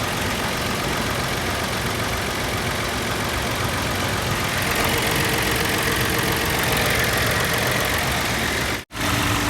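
Nissan Pathfinder 3.5 V6 (VQ35DE) idling steadily with a misfire, which the owner calls pretty bad; it turns out to come from a dead ignition coil. The sound cuts out completely for a moment near the end.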